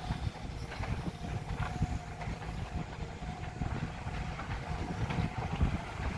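Sumitomo SH210 hydraulic excavator's diesel engine running under load as the bucket digs in and lifts a load of dirt: a steady low rumble with a few light knocks.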